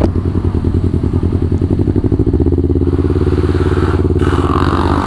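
Kawasaki Ninja 250 parallel-twin engine running through an aftermarket Villan New ZX1 exhaust while the bike is ridden at low, fairly steady revs. About four seconds in, a short rush of noise rises over the exhaust note.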